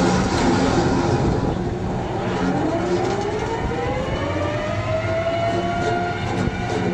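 Volvo EC290B excavator driving a hydraulic rock-trenching wheel: a heavy, steady machine drone with a whine that rises in pitch from about two seconds in until near the end.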